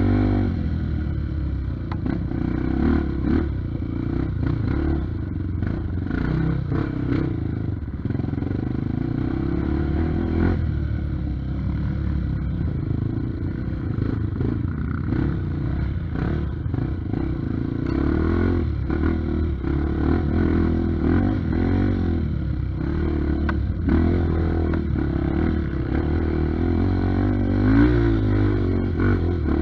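Honda Tornado trail bike's single-cylinder four-stroke engine running under load, its revs rising and falling as the rider works the throttle. Frequent clatter and knocks as the bike rides over rough, rocky ground.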